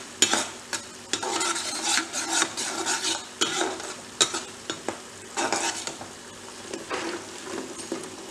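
A metal ladle scraping and knocking against a kadai as a thick honey-chilli sauce is stirred over high heat, with potatoes sizzling in hot oil in a second kadai. The clatter comes as irregular sharp clicks over a steady frying hiss.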